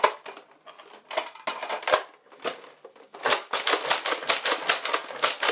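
Plastic clacking of a Nerf dart blaster being handled and fired. There are a few scattered clicks at first, then from about three seconds in a fast run of sharp clacks, several a second, as it is primed and fired again and again until it runs out of darts.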